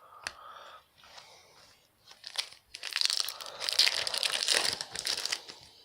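Trading card pack wrapper crinkling and tearing as it is ripped open, densest and loudest from about three to five and a half seconds in, with a sharp click just after the start.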